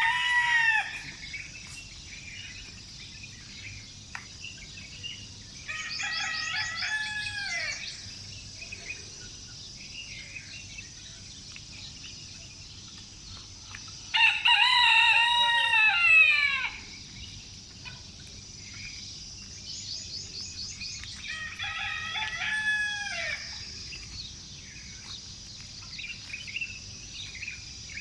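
Roosters crowing: three full crows spaced several seconds apart, the loudest about halfway through, with the tail of a crow at the start. Small birds chirp in between, over a steady high hiss.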